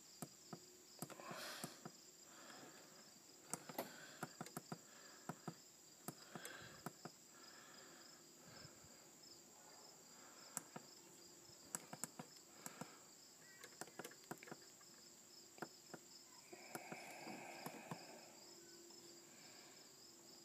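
Mostly near silence broken by irregular light clicks as the buttons on a Hunter I-Core irrigation controller's keypad are pressed. A faint steady high-pitched trill runs underneath.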